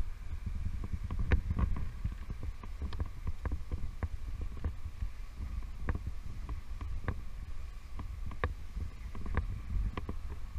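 Wind buffeting a body-worn action camera's microphone high up on the outside of a tower, a steady low rumble, with scattered light clicks and taps throughout.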